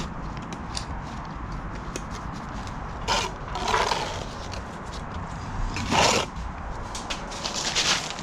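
Steel brick trowel scraping wet mortar against clay brick and the mortar tub, in four short scrapes, the loudest about six seconds in, over a low steady background noise.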